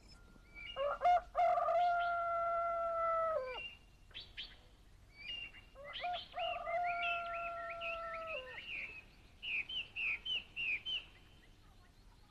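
A rooster crows twice, each a long held call that drops off at the end, with small birds chirping around it and a quick run of chirps near the end.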